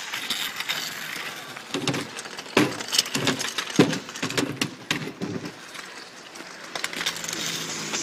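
Kick scooters rattling along a street and clacking on a plastic ramp. Several sharp knocks come a couple of seconds in, with children's voices over them.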